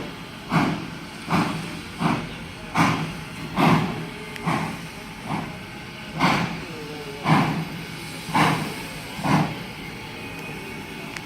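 1891 Baldwin 2-6-0 steam locomotive exhausting in loud chuffs about one a second as it works up a grade under load. The beats slow a little and stop near the end, leaving a steady hiss.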